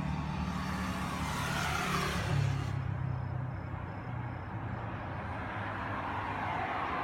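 A motor vehicle running with a steady low hum, and a rushing swell of noise that builds and then cuts off a little under three seconds in.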